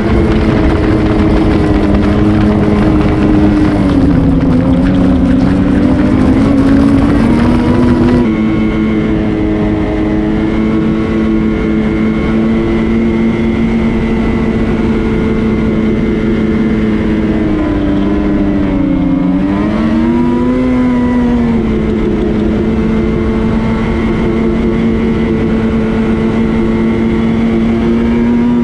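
Ski-Doo Renegade XRS 850 snowmobile's two-stroke engine running at a steady cruising speed. The pitch dips as it backs off and rises again as it accelerates, twice: about four seconds in and again around nineteen seconds. About eight seconds in the sound changes abruptly, losing some of its higher sound.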